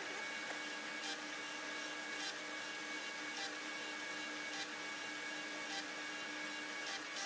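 CNC Taig mini lathe running while it machines brass stock: a steady motor hum with a few high, even tones over it, and a faint tick about once a second.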